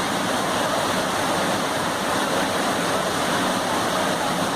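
Floodwater rushing steadily, a constant loud roar of fast-flowing water.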